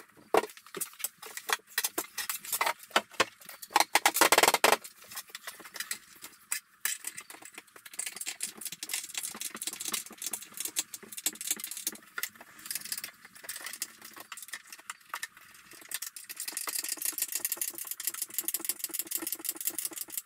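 Worktop joint bolts being done up by hand from beneath the cabinet: irregular metallic clicking and rattling of the bolts and tool, with a louder scrape about four seconds in and faster, denser clicking in the second half.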